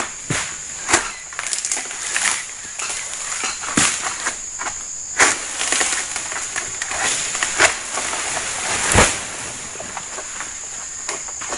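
A long-handled harvesting sickle cutting and scraping at an oil palm's frond stems high in the crown, giving irregular sharp cracks and rustles, with a heavier thud about nine seconds in. A steady high insect drone runs underneath.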